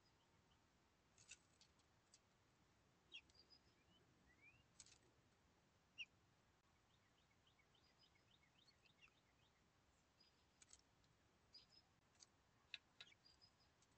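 Faint, irregular sharp clicks and taps of a dark-eyed junco pecking and picking through sunflower seeds in a wooden tray feeder. Among them are a few faint, high bird chirps and, about eight seconds in, a quick run of short notes.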